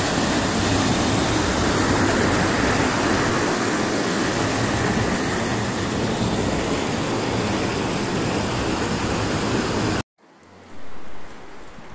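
Rushing water of a rocky mountain stream cascading down small waterfalls, a steady loud rush. About ten seconds in it cuts off suddenly, leaving a brief louder sound and then much quieter open-air surroundings.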